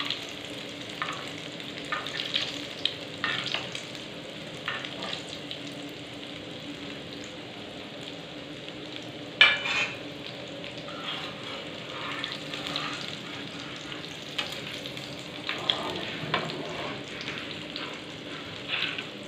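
Egg omelette mixture sizzling as it fries in hot oil on a tawa, with short clinks and scrapes of metal utensils against the pan. One sharp, loud clank about nine and a half seconds in.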